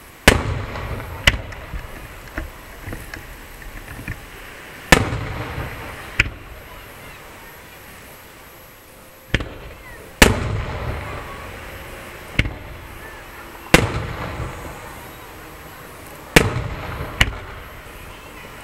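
Aerial firework shells bursting overhead: about ten sharp bangs, mostly in pairs about a second apart, every few seconds. Each bang is followed by a rolling rumble that fades over a second or two.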